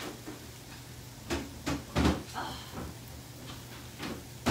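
Dishes and containers knocking and clunking in a refrigerator as a bowl is put away and the shelf contents are shifted. There are about half a dozen short knocks, the loudest about two seconds in.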